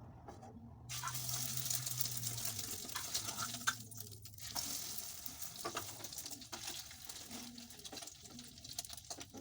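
Food sizzling in hot oil in a pan, the sizzle starting suddenly about a second in and running on with irregular crackles.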